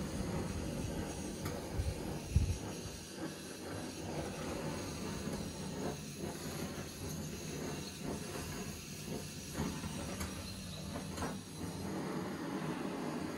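Handheld gas torch on a screw-on gas canister burning with a steady roaring hiss as it scorches wood. A couple of dull bumps about two seconds in.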